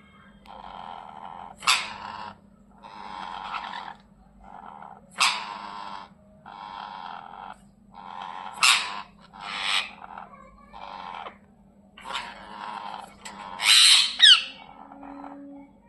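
Ringneck parrots squabbling: a run of harsh, raspy grumbling calls, broken every few seconds by a sharp, loud shriek.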